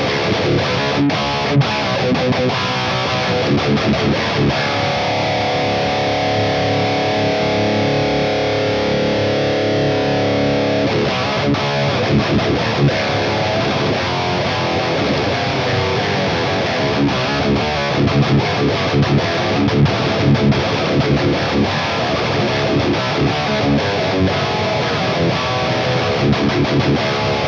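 Distorted electric guitar in drop C playing heavy downtuned riffs through a Mooer Brown Sound 3 (5150-style) preamp pedal with the DV30 cab sim. It is a Schecter C1 Elite with Fishman Modern ceramic pickups. The riffs are choppy muted chugs, with a chord left ringing for a few seconds early on.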